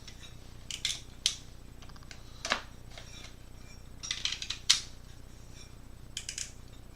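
Packaging being handled and opened: a few scattered clusters of short, sharp clicks and crinkles.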